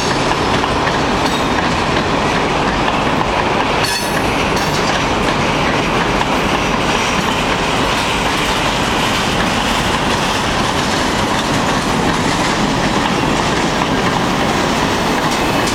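CN freight train's boxcars and covered hoppers rolling past close by: a steady loud rumble and clatter of steel wheels on the rails, with a sharp clank about four seconds in.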